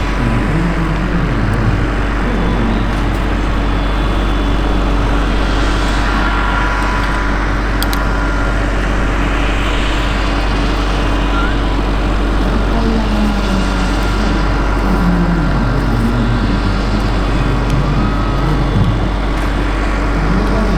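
Radio-controlled scale model helicopter (Bell 230) in flight: a steady whine from its motor and rotor over a constant low rumble, swelling and fading several times as it moves about.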